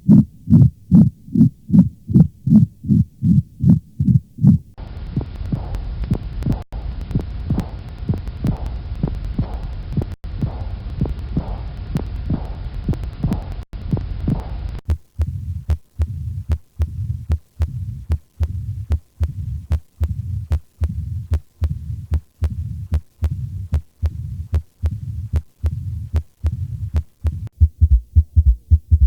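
Recorded heart sounds heard through a stethoscope: a steady lub-dub rhythm of the first and second heart sounds. Several different recordings play in turn, the beat changing about 5 s in, about 15 s in and near the end. The middle one carries a steady background hiss.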